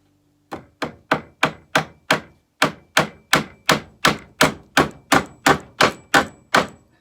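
A hammer driving nails into wood: about eighteen sharp, even blows at roughly three a second, with a brief pause after about two seconds.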